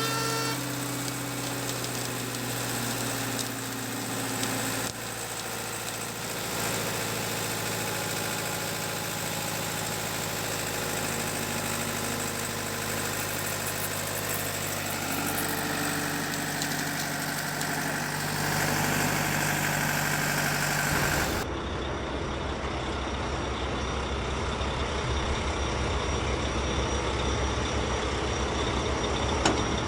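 An engine running steadily. About 21 seconds in the sound changes abruptly to a lower, rumbling engine sound.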